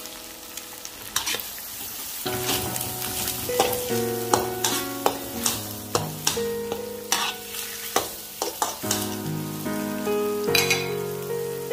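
A metal spatula scraping and knocking against a metal wok while stir-frying grated carrot and fish cake with egg in hot oil, which sizzles. The strokes start about a second in and come irregularly, several a second.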